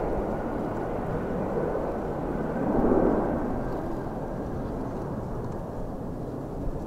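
Boeing 737-800's CFM56-7B turbofan engines at takeoff thrust: a steady rumble with a faint high whine. The sound fades gradually as the jet rolls away down the runway and lifts off, with a brief swell about three seconds in.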